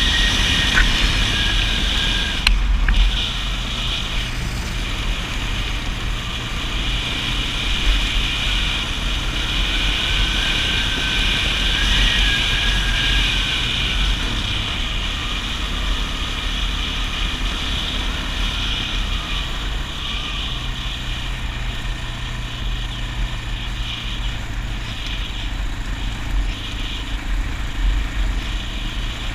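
Kawasaki KFX400 ATV's four-stroke single-cylinder engine running steadily while riding a dirt trail, its pitch rising and falling gently with the throttle. A couple of sharp knocks sound in the first few seconds.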